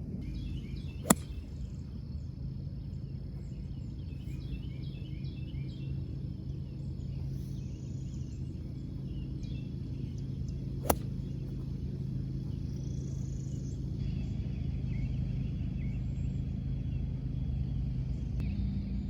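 Two crisp golf club strikes on the ball, one about a second in and one about eleven seconds in, with birds chirping and a steady low outdoor rumble between them.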